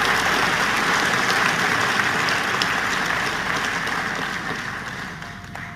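Large audience applauding, the clapping dying down toward the end.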